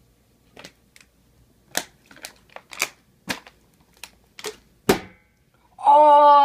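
A string of sharp plastic clicks and knocks from a plastic water bottle flipped onto a table, the loudest about five seconds in as it lands upside down on its cap. Near the end a person gives a loud, drawn-out shout.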